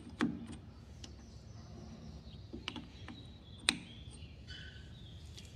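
A handful of light, sharp metallic clicks, spaced irregularly, as a freshly turned chuck key is fitted into and worked in the socket of a lathe chuck.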